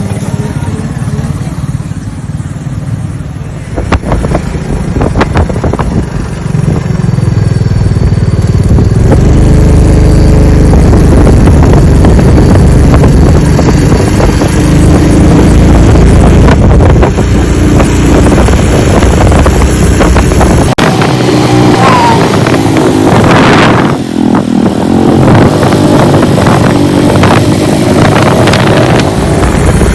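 A vehicle engine running while under way, its pitch shifting, under heavy wind rumble on the microphone. About two-thirds of the way in the low rumble eases and a brighter rushing noise takes over.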